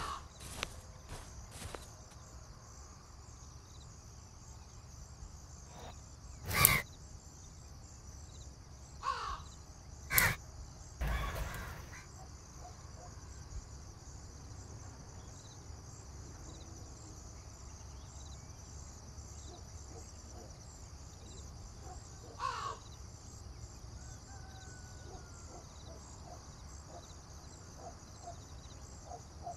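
Crows cawing several times, loudest about seven and ten seconds in and once more past twenty seconds, over a steady high buzz of insects. A few footsteps on leaf litter in the first couple of seconds.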